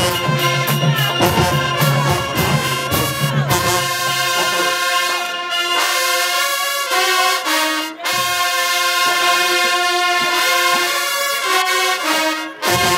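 HBCU marching band brass section playing, with drum hits under the first few seconds, then held brass chords. The music breaks off briefly about eight seconds in and again near the end.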